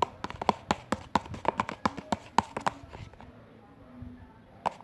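A spoon clicking against the side of a container, about four quick taps a second, as detergent and egg white are stirred briskly into slime; the stirring pauses for a moment past the middle and starts again near the end.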